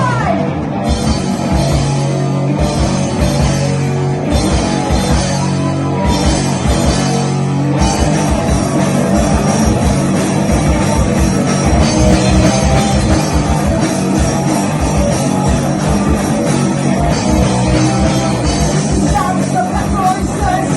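A live rock band playing, with drums, bass and guitar. A voice sings briefly near the start and again near the end.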